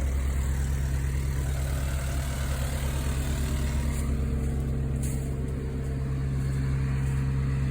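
Heavy vehicle engine running steadily at a constant speed, with a low, even hum and no change in pitch.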